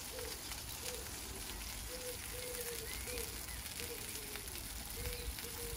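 Sausages and burgers sizzling on the grates of a gas barbecue grill, a steady hiss with fine crackling.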